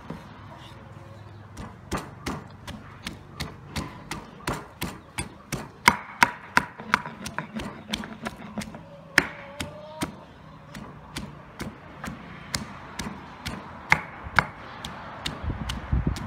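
Wooden pestle pounding peeled garlic cloves in a heavy stone mortar: dull knocks in a steady rhythm of about two to three strikes a second, starting a second or two in.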